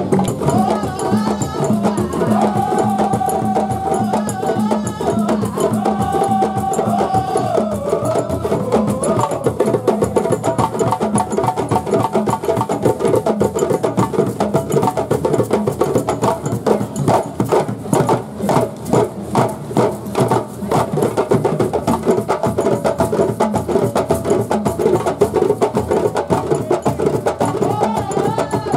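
Percussion music with a fast, dense beat of wooden knocks and rattles. A pitched melody line is held on steady notes over the first nine seconds or so.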